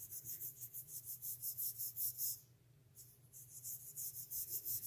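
Quick, rhythmic rubbing strokes of polymer clay being rolled back and forth by hand on a work surface, about five strokes a second, pausing for about a second midway.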